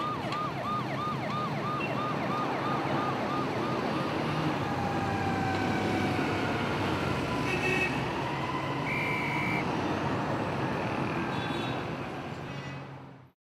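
Street traffic noise with an emergency-vehicle siren yelping rapidly, a quick rise and fall several times a second, for the first few seconds. A brief horn sounds about nine seconds in. The sound fades out near the end.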